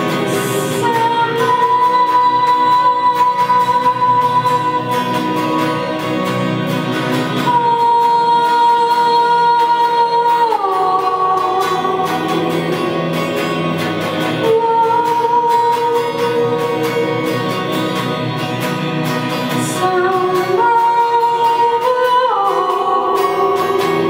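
A woman singing long, held notes that slide down between phrases, over her own electric guitar playing, picked up by a camera's built-in microphone.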